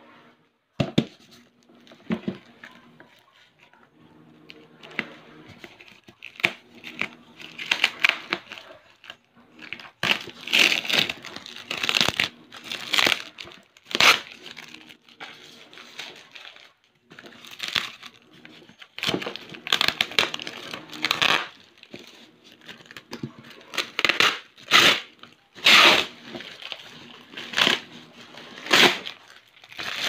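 Plastic bubble-wrap packaging crinkling and tearing as it is cut open with scissors, in irregular bursts of rustling that grow louder from about ten seconds in.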